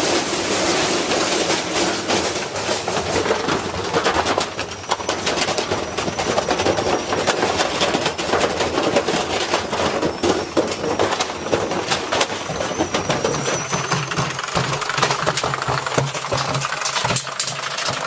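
Washing machine spinning with a brick loose in the drum: a continuous, rapid banging and rattling as the brick batters the drum and the machine shakes. About three-quarters of the way through, a steady low motor hum comes up under the clatter.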